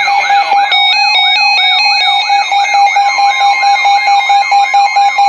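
Weather radio alert alarm sounding for an incoming special marine warning: an electronic whoop that rises and falls about four times a second over a steady tone, with a higher tone stepping up and down above it.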